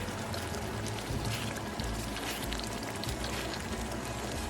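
Chicken masala sizzling and crackling in a frying pan, with background music.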